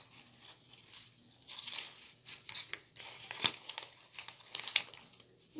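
Paper dollar bills rustling and crinkling as they are handled and flipped through, with a couple of sharper snaps in the second half.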